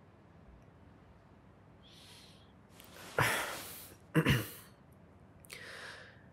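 A man's breathing close to the microphone: a soft breath in, then a longer audible sigh out about three seconds in, a short voiced breath or hum with falling pitch right after it, and another quiet breath near the end.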